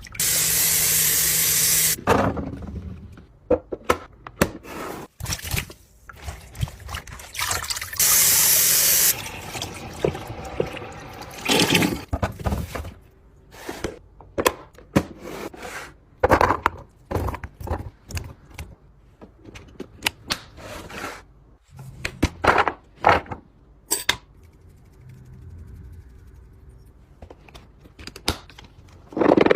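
Kitchen containers and food being handled: many short clicks, knocks and taps of lids and boxes, with two spells of rushing hiss, one about two seconds long at the start and a shorter one about eight seconds in.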